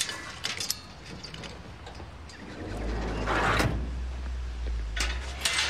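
Metal bar gate being shut and padlocked: sharp metallic clicks and rattles. About halfway there is a short rushing noise, and a low steady hum runs under the second half.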